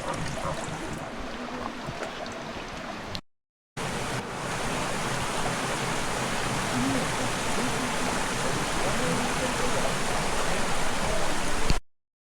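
Steady rushing of a mountain stream. It breaks off briefly about three seconds in and comes back louder.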